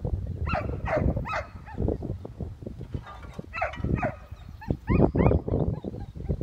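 Search-and-rescue dog giving short, high yelping whines that fall in pitch, in clusters of two or three.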